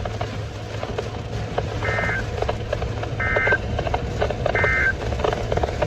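Three short bursts of EAS/SAME digital data tones, the end-of-message (EOM) signal that closes a NOAA Weather Radio alert. Each is a quick warbling chirp of two close tones near 2 kHz, the bursts about 1.3 s apart, over a steady low hum and faint clicking from the radio reception.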